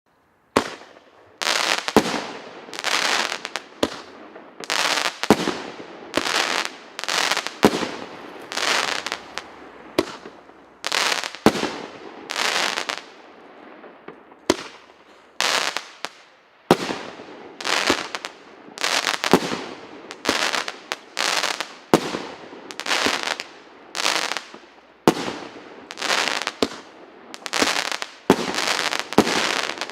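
Firework cake (a 1.25-inch, 16-shot battery) firing its shots one after another, starting about half a second in. Each shot is a sharp report followed by a noisy tail that fades over about a second, repeating roughly once a second.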